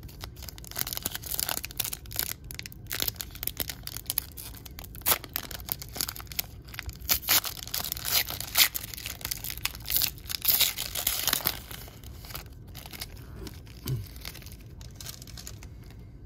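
A sealed foil trading-card pack wrapper being crinkled and torn open by hand: a run of sharp, papery crackles and rips, loudest in the middle, thinning out over the last few seconds.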